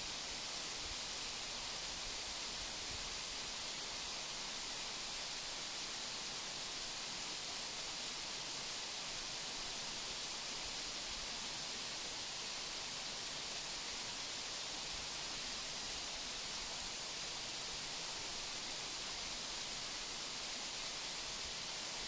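Waterfall: a steady, unchanging rush of falling water, heaviest in its hiss.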